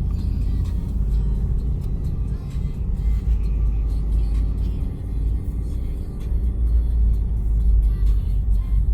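Steady low rumble of a vehicle driving slowly, heard from inside the cab, with music underneath.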